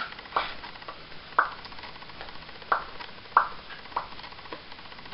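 A series of about six sharp, irregularly spaced clicks or taps, the loudest about a second and a half and three and a half seconds in, over faint room noise.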